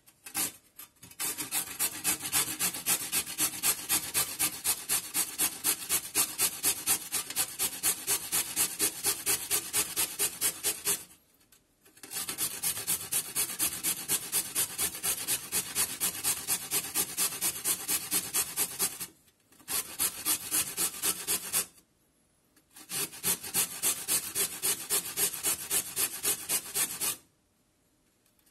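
A carrot being grated on a stainless steel box grater: quick scraping strokes, about four or five a second, in several runs broken by short pauses.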